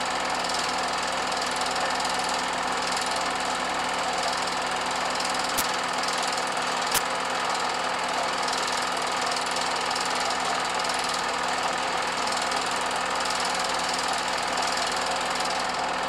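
Steady mechanical clatter of a running machine, even and unchanging, with two sharp clicks a little over a second apart near the middle.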